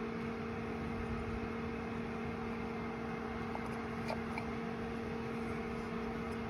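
Steady background hum, with two steady tones over an even hiss, and a few faint ticks of plastic pump parts being handled near the middle.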